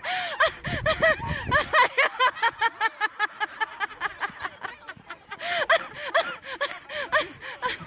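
Cat chirping in a rapid run of short, rising-and-falling chirps, about five or six a second, easing off briefly near the middle and then picking up again.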